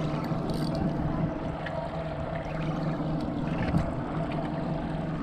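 Boat motor running at a steady hum, with wind and water noise.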